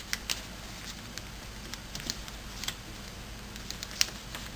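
A sheet of origami paper being folded and creased by hand: scattered light crinkles and ticks, the sharpest about four seconds in.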